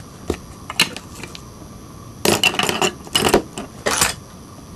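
Small hard objects clicking and rattling as hand tools are picked up and handled: a couple of single clicks, then two short spells of rattling about halfway through and a last click near the end.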